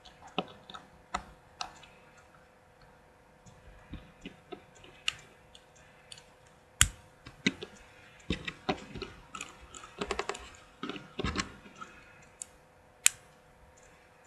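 Plastic Lego bricks clicking and tapping as they are handled: irregular sharp clicks, with two louder ones about seven and thirteen seconds in, over a faint steady hum.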